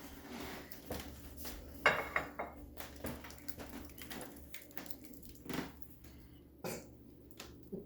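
A spoon scraping and knocking against a metal pot as thick rice pudding is spooned out into a dish, with scattered clinks. The loudest knock comes about two seconds in.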